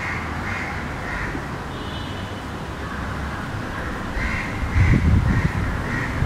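Crows cawing in short runs of calls, about two a second, three near the start and four more later. A low rumble of wind on the microphone swells near the end and is the loudest thing.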